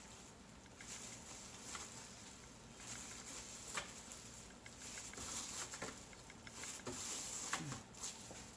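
Soft, irregular rustling, tapping and scraping of hands handling and shaping a sushi roll, with a few small clicks.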